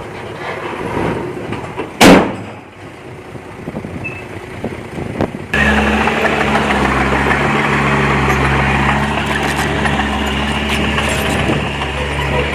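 Diesel engine of heavy earthmoving machinery running. A short, loud burst comes about two seconds in. Just before the middle the sound changes abruptly to a steady engine drone.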